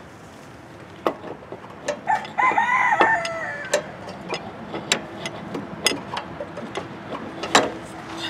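A rooster crows once, about two seconds in, for under two seconds. Around it come sharp clicks and knocks from the metal PTO clutch being handled and slid onto the engine crankshaft.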